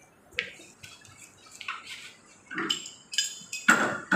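Metal tools clinking against a steel pipe clamped in a bench pipe vise: several scattered sharp metallic taps, then a louder clank with ringing near the end.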